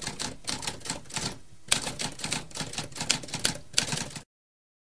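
Typewriter keys clacking in a fast, uneven run of strikes, with a short pause about a second and a half in. The typing cuts off suddenly about four seconds in.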